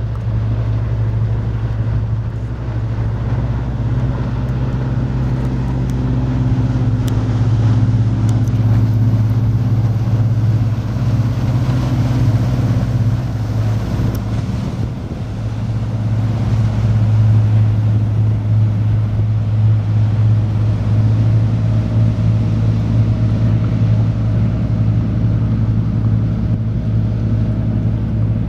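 Riviera 3300 motor cruiser's engines running steadily, a deep, even drone that dips briefly about halfway through.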